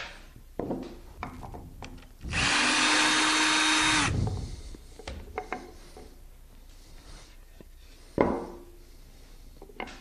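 Cordless drill running steadily for about two seconds, then stopping and spinning down, as the faceplate screws are worked on. Small clicks of handling, and a sharp knock of wood set down on the lathe bed near the end.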